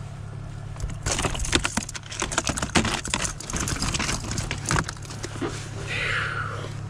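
Clicking and rattling of a just-landed bass and its lure being handled against a plastic crate, densest in the middle, over a steady low hum.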